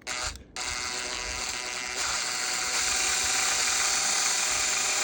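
Electric drill polishing an aluminum radio knob against a fiber pad with silver polish. The motor starts with a short burst, drops out for a moment, then runs steadily with a whine and a scrubbing hiss, getting louder about two seconds in.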